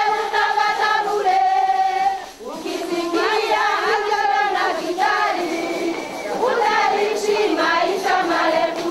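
A group of women singing together as a choir, in long held phrases with short breaks between them.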